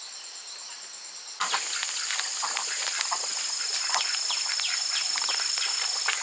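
Insects droning steadily at a high pitch. About a second and a half in, the sound turns abruptly louder and many quick bird chirps join the drone.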